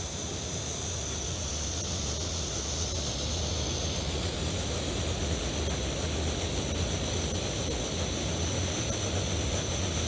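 Backpacking stove burner running with a steady rushing noise and a low hum; the noise stops abruptly at the very end.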